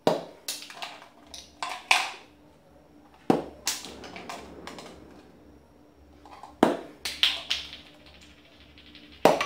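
Peanuts tossed at a cardboard box target, landing as a dozen or so light, sharp taps and clatters on the cardboard and the floor, in small clusters with a quieter stretch in the middle.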